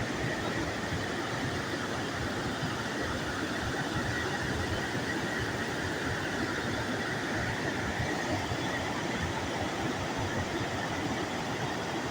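Probiy waterfall on the Prut river: water pouring over the rocks in a steady, unbroken rush.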